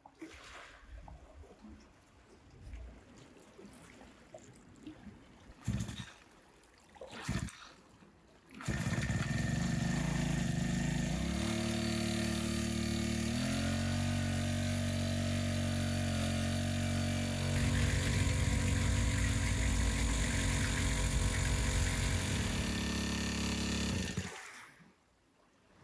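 Small petrol-engine portable water pump pumping seawater: after two short bursts it starts about nine seconds in, runs steadily, rising in speed twice soon after starting, then cuts off near the end.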